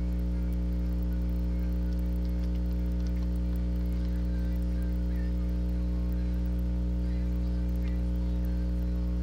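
Steady electrical mains hum, a low drone with a stack of overtones, on the recording. Faint scattered keyboard clicks sit underneath it as text is typed.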